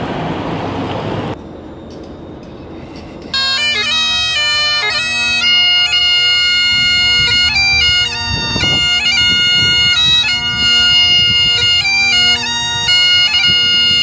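Street noise, then about three seconds in a set of bagpipes starts up loudly, playing a tune over a steady drone note.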